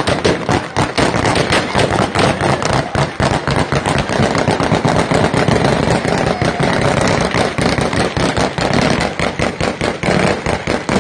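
Sustained gunfire, loud and close: many sharp shots a second in irregular bursts, over the voices of a crowd.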